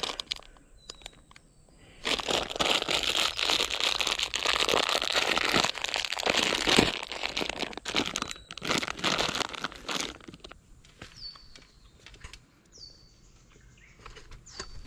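Plastic lolly packet crinkling loudly as it is handled and pulled open, the crinkling thinning to scattered rustles after about ten seconds.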